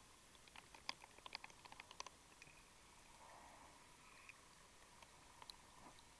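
Near silence underwater, broken by faint, irregular sharp clicks and ticks, bunched in the first two seconds with a few more near the end, over a faint steady high hum.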